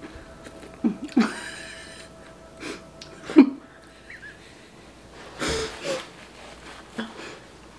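Two people tasting food and reacting without words: short hums and breathy laughter, with a snort-like burst of breath about five and a half seconds in.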